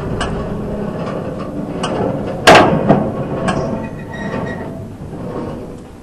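Case 230 square baler's needle and knotter mechanism being cycled, with metal clicks and knocks over a rumble. A sharp metallic clank about two and a half seconds in is the loudest sound, followed by a few smaller knocks. It is a test cycle to check the needle-to-tucker-finger timing after an adjustment.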